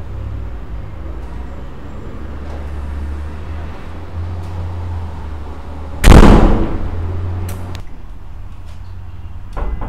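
A single loud bang about six seconds in, its low rumble dying away over a second or so, over a steady low hum; just before the end come a few sharper knocks.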